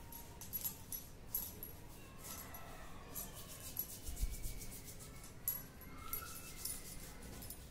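Bangles jingling in quick bursts of small clinks as the wrists move back and forth while massaging a baby's legs. The baby makes faint, high-pitched vocal sounds, and there is a soft low bump a little after the middle.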